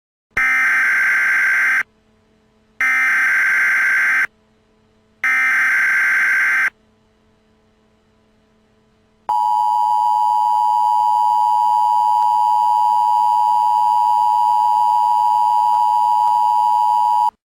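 Emergency Alert System tones. First come three short bursts of the SAME digital header, each a buzzy data squeal about a second and a half long with a short pause between. After a gap of a couple of seconds the steady two-tone attention signal sounds for about eight seconds, then cuts off sharply.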